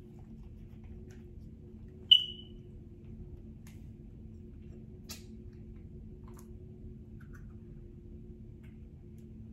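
A plastic drink bottle's cap opening with a sharp click and a brief high ring about two seconds in, then a fainter click around five seconds, over a steady low room hum.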